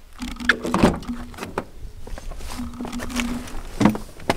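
Toyota car door opened by its handle and someone climbing into the seat: scattered clicks and knocks from the handle, latch and seat, the sharpest about a second in and again near the end.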